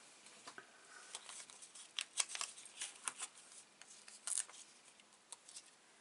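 Light crinkling and small clicks of paper and plastic being handled as a foam adhesive dimensional is peeled off its sheet and pressed onto a piece of card, with a sharper crackle about four seconds in.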